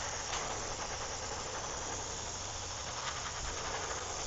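Airbrush spraying white base-coat paint onto the head of a 3D-printed swimbait: a steady, even hiss of air and paint with a low hum beneath.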